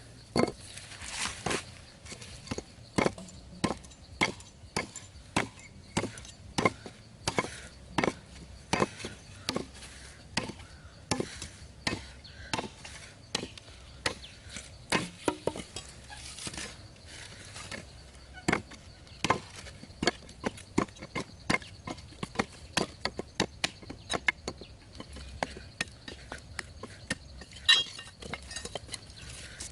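Repeated chopping strikes of a blade tool, about one to two a second, some strikes harder than others.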